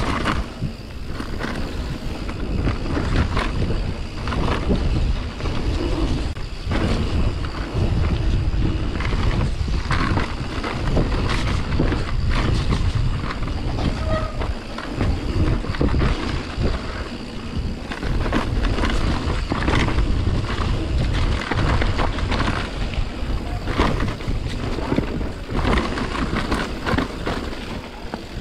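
Santa Cruz Nomad mountain bike ridden down a wet dirt singletrack: a steady low rumble of riding, with frequent rattles and knocks from the bike over the bumps of the trail.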